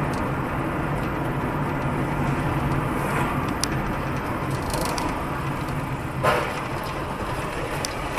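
Steady engine and road noise inside a car as it slows down, with a brief bang about six seconds in.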